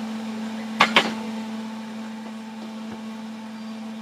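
Microwave oven running with a steady hum. Two sharp clicks close together about a second in.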